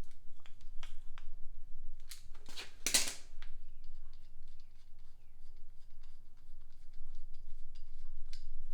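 Tools being handled at the tire valve: a scatter of light metallic clicks, with a few louder scraping strokes about two to three seconds in.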